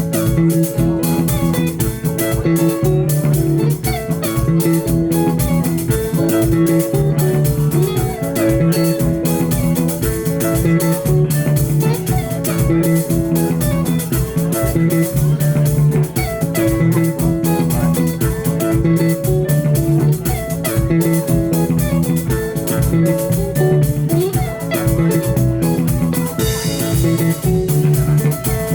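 A live band playing an instrumental passage: picked electric guitar lines over bass guitar and a steady drum-kit beat, with no singing.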